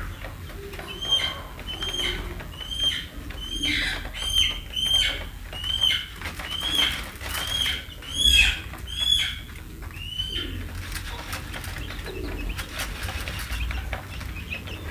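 Young chicks peeping: a run of clear peeps, each rising then falling in pitch, about two a second, giving way after about ten seconds to fainter chirps and light clicks of pecking at the feed.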